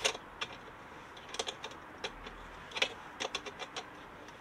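Sharp metallic clicks in short irregular runs: a socket tool being worked on the nut that holds the battery cover panel, loosening it.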